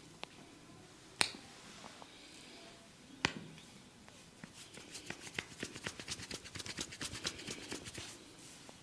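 Sharp clicks from a barber's hands working the head and ears in a massage: two single loud cracks about two seconds apart, then a quick run of many crackling clicks for about three seconds.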